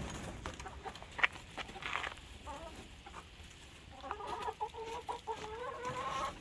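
Domestic hens clucking, with a few sharp taps early on, then one long drawn-out call starting about four seconds in and lasting about two seconds.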